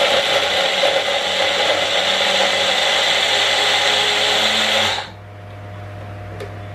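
Magic Bullet personal blender running steadily as it grinds chunks of Parmesan cheese into fine crumbs, cutting off suddenly about five seconds in. A steady low hum remains afterwards, with a faint click near the end.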